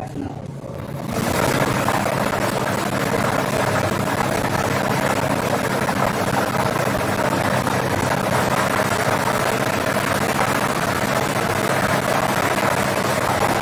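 Air-mix lottery ball machine switching on about a second in: its blower runs steadily while the light plastic balls clatter around inside the clear chamber.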